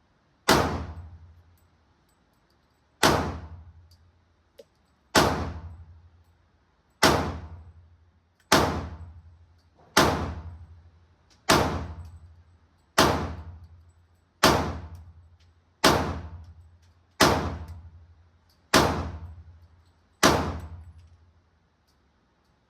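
Pistol fired in slow, deliberate single shots, thirteen in all, each crack followed by a fading echo, roughly one and a half to two seconds apart.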